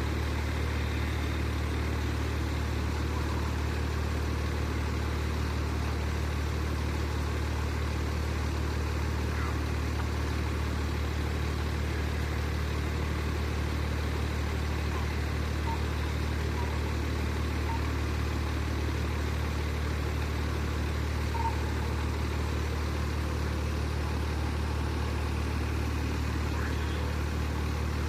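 Fire truck's diesel engine idling, a steady low drone that does not change.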